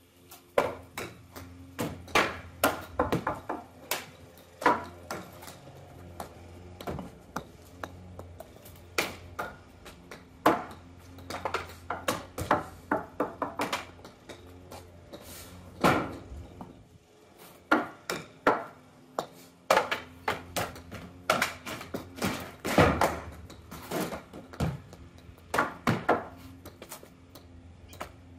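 An irregular run of sharp knocks and clacks: thrown balls striking books standing on a wooden table and metal stepladders, and the books toppling onto the table and the concrete. Some hits come singly and some in quick clusters.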